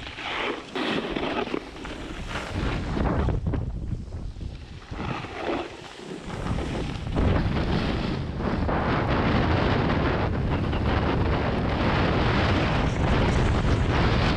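Wind rushing over the camera microphone during a downhill run in a snowstorm. It gusts unevenly for the first few seconds, then becomes a steady, loud rush from about seven seconds in.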